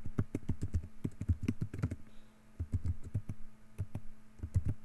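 Typing on a computer keyboard: quick, irregular keystrokes, with a short pause about two seconds in before the typing resumes.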